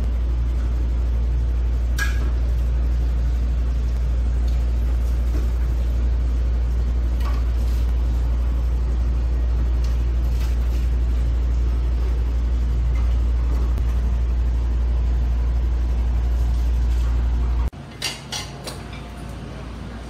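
A loud, steady low hum that cuts off suddenly near the end, giving way to quieter room noise with a few sharp clicks.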